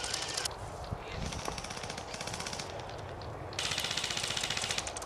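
Airsoft rifles firing on full auto: bursts of rapid clicking shots. A short burst ends about half a second in, a fainter one follows, and the loudest starts about three and a half seconds in and runs on, over a low steady rumble.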